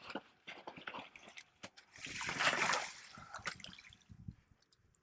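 Water splashing and sloshing in a fishing hole cut through thick ice, with a louder splash about two seconds in and scattered small knocks.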